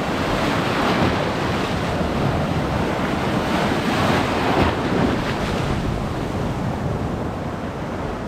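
Small sea waves breaking and washing in over a rocky shoreline, a continuous rushing surge that swells about a second in and again around four to five seconds in.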